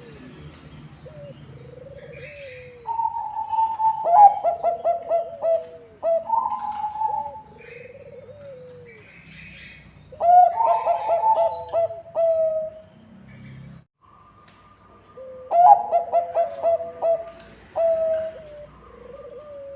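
Bangkok-type perkutut (zebra dove) singing: three loud cooing phrases, each a higher opening note followed by a quick run of short staccato coos. Softer single rising-and-falling coos come in between.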